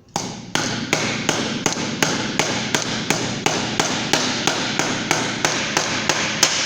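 Hammer blows on a sheet-metal seam in a steady rhythm of about three strikes a second, the thin metal ringing between blows, as the crimped bottom edge of the rim is flattened against a metal bench edge.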